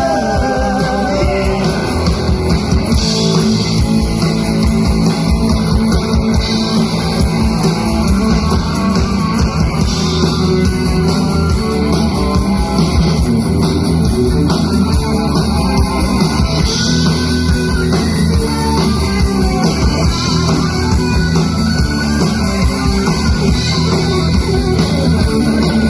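Rock band playing a song live at full volume, guitars over a steady beat, with a singer's voice near the start.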